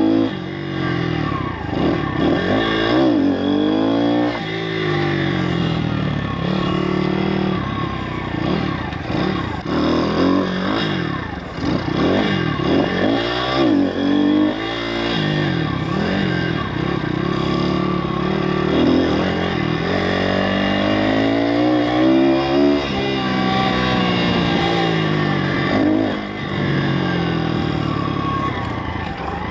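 YX 160cc single-cylinder four-stroke pit bike engine under way, revving up and easing off again and again so that its pitch climbs and drops repeatedly.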